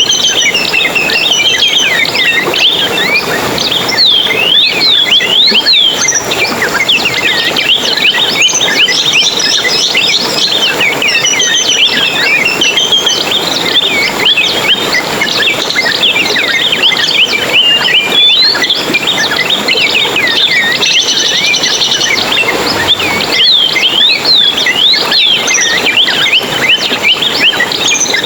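Dense chorus of many small songbirds chirping and twittering at once, quick rising and falling notes overlapping without a break.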